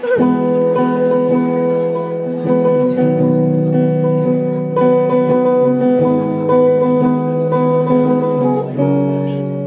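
Acoustic guitar strumming chords, with a chord change near the end.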